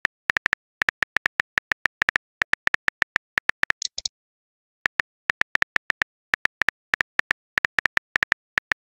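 Phone-keyboard typing clicks from a texting-story app, a quick irregular run of short ticks as a message is typed letter by letter. A brief high hiss comes about four seconds in, followed by a short pause in the typing.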